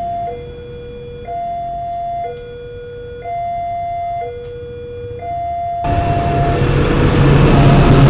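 Railway level-crossing warning bell sounding a two-tone high-low alarm, each note about a second long. About six seconds in, a loud rush and low rumble of an arriving diesel-hauled train rises over it and the alarm continues underneath.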